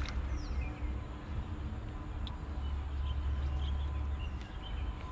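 Small birds chirping over a low, uneven rumble, with a brief splash right at the start as a hooked fish thrashes at the surface.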